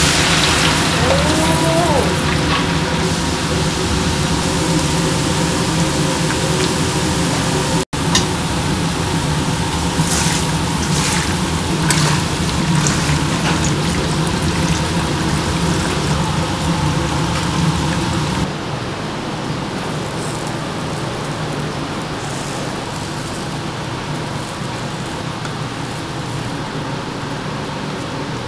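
Minced garlic sizzling as it deep-fries in a wok of hot oil over a gas burner, a steady hiss over a low hum. About two-thirds through it drops to a quieter, even background.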